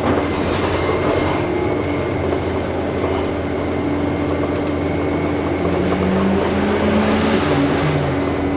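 Orion VII Next Generation low-floor hybrid bus running, heard from inside the passenger cabin: a steady drive drone with a sustained humming tone and a fainter high whine. A lower tone shifts up and down in pitch over the last few seconds as the bus changes speed.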